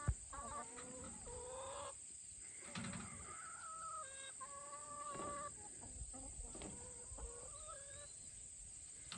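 Chickens clucking: a run of faint, drawn-out calls, one after another.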